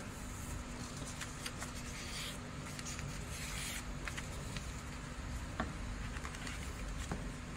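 A sheet of paper rustling and crinkling as it is folded and creased by hand, with scattered small ticks and a couple of sharper clicks in the second half, over a steady background hiss.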